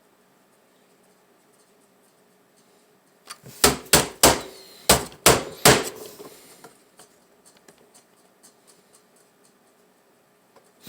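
A quick run of about seven or eight sharp knocks, a hand smacking a laptop's case, starting about three seconds in and lasting a couple of seconds, followed by a few faint ticks.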